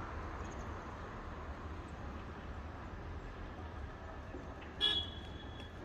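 Roadside street background with a low steady rumble, and a short, high vehicle horn toot near the end.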